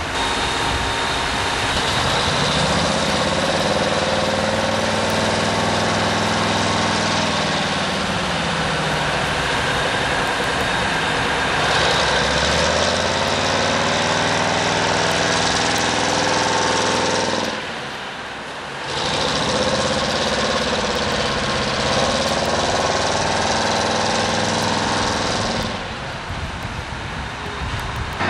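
A boat's engine running steadily, its pitch slowly rising and falling in waves as the throttle changes. It drops away for about a second around two-thirds of the way through.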